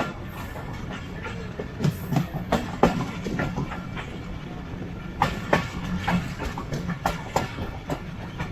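Passenger train running, heard from aboard: a steady low rumble with irregular sharp clacks of the wheels over rail joints. The clacks come thickest about two to three seconds in and again after about five seconds.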